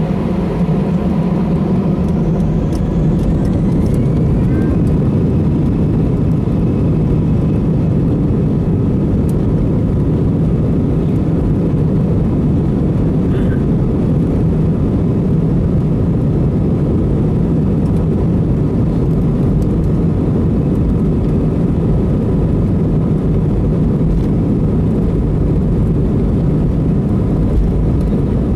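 Airbus A321 jet engines running for takeoff: a loud, steady rumble with a constant whine, and a second whine that rises in pitch about two seconds in.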